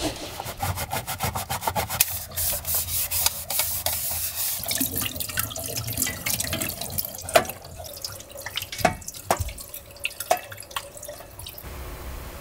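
Tap water running into a small stainless steel sink while dishes and a plastic lid are scrubbed with a brush and rinsed, with scattered clinks and knocks of the dishware against the sink.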